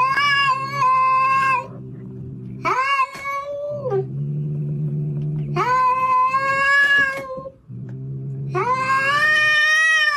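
Orange tabby cat yowling at another cat in four long, drawn-out wails, with a low steady growl in the pauses between them: a hostile warning.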